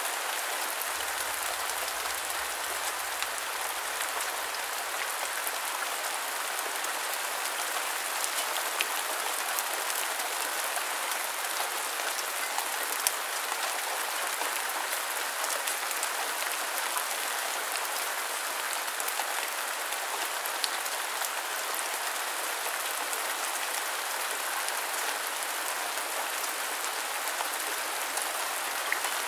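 Steady rain falling: a dense, even hiss with scattered single drops ticking through it.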